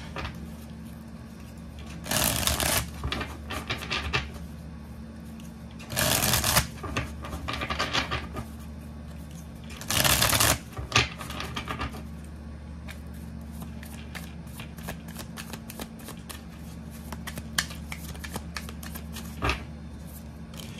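A deck of oracle cards being riffle-shuffled by hand on a wooden table: three fast riffles about four seconds apart, each a burst of rapid fluttering clicks, with softer scattered clicks of the cards being handled between and after them. A steady low hum runs underneath.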